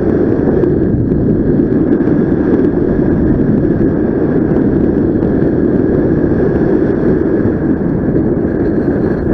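Airflow rushing over the microphone of a paraglider in flight: a loud, steady buffeting with a thin, steady high tone running above it.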